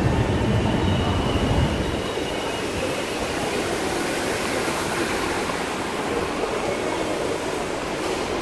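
Steady hiss of an MRT station concourse, with a deep rumble that dies away about two seconds in.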